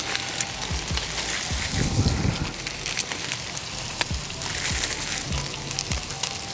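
Smash burger patties sizzling on a hot Blackstone flat-top griddle: a steady frying hiss dotted with fine crackling pops of fat, with some low rumbling about two seconds in.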